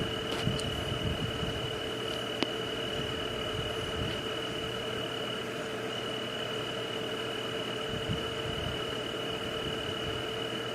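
Night ambience of insects and frogs: a steady, unbroken high trill with a lower continuous tone over an even hiss, with a few faint soft knocks.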